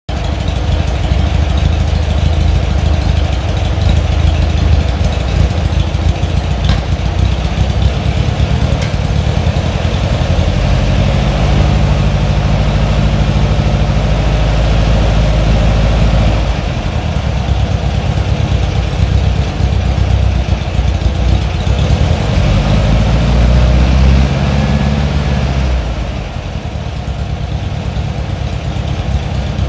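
Air-cooled VW flat-four engine on a test stand, running through a stainless Vintage Speed Superflow exhaust (155-233-052SF) with twin tailpipes. The engine speed and exhaust note shift a few times, and it runs quieter for the last few seconds.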